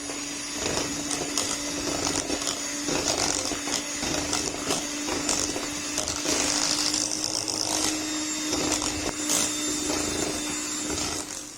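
Electric mixer running at a steady speed, beating a cream cheese, condensed milk and cream mixture, with irregular clicks and knocks from the beaters against the bowl; the motor cuts off near the end.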